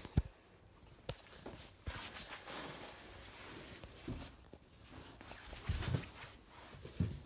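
Scattered knocks, clicks and handling noises of a toy slot machine being moved and handled, with a sharp click just after the start and a few heavier thumps near the end.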